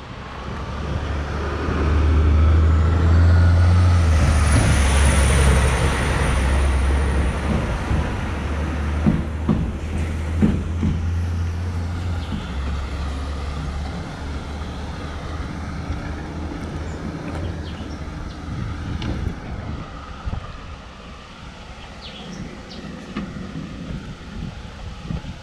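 A motor vehicle's engine running with a low rumble, loudest a few seconds in and then slowly fading away.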